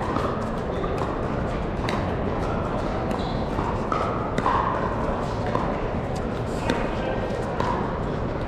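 Pickleball paddles striking a hard plastic ball in a doubles rally, sharp pops at irregular intervals, mixed with more pops from neighbouring courts over the steady din of a large hall.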